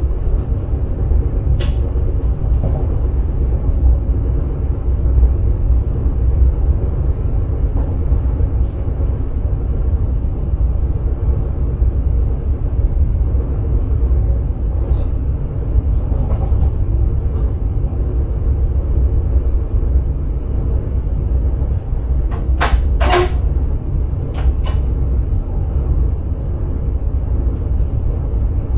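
Electric sprinter train running, heard from inside the driver's cab: a steady low rumble with a faint hum of the motors above it. A few short clicks break in, the clearest a quick cluster about 23 seconds in.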